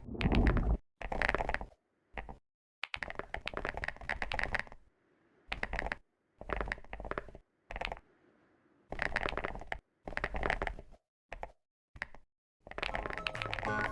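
Typing on a keyboard: about ten short bursts of rapid key clicks, with silent gaps between them. Music comes in near the end.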